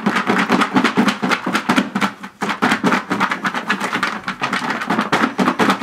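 Chocolate- and peanut-butter-coated Chex cereal rattling and tumbling inside a lidded mixing bowl as it is shaken with powdered sugar to coat every piece, a fast dense patter of small hits with a brief lull about two seconds in.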